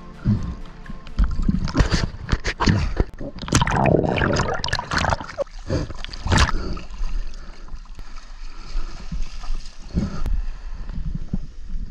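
Water splashing and gurgling around a camera at the surface as a freediver kicks with swim fins through shallow water. The splashing is busiest in the first half and grows sparser later.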